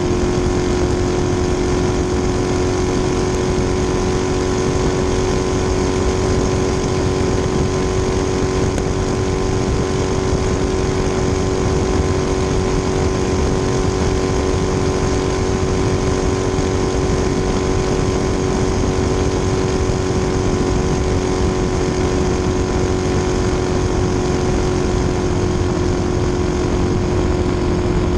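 Twin-turbo V8 of a 1600-plus-horsepower ski race boat running flat out at steady high revs, one unbroken engine note that holds its pitch.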